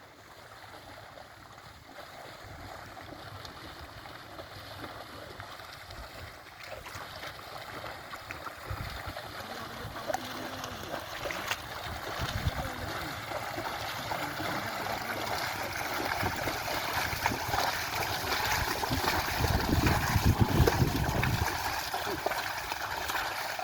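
Mud and water sloshing and splashing as an ox-drawn plough is pulled through a flooded field, growing louder toward the end.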